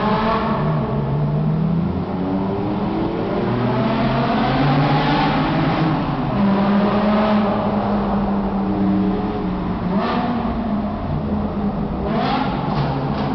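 BMW M6's V10 engine breathing through an Eisenmann straight-pipe exhaust, revved up and let down again and again, echoing off the tunnel walls.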